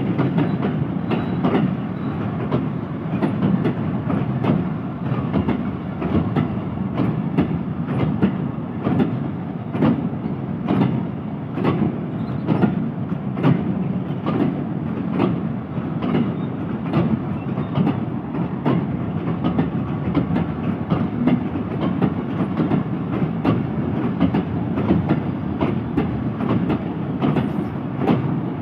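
Freight train of bogie oil tank wagons rolling past, steel wheels clacking rapidly over rail joints over a steady rumble.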